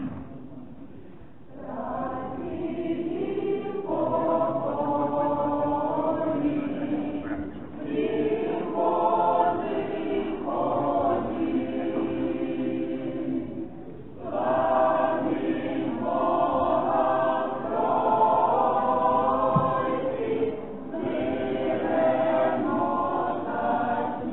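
Church choir chanting the liturgy of an Eastern-rite wedding service, unaccompanied. The singing begins a moment in and runs in several phrases with short pauses between them.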